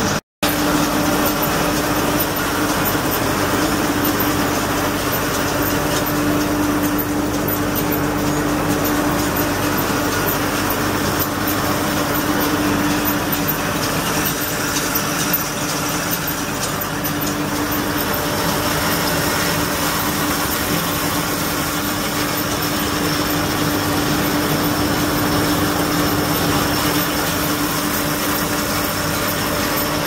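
An engine running steadily at idle, an even hum with one steady tone, broken by a brief cut in the sound just after the start.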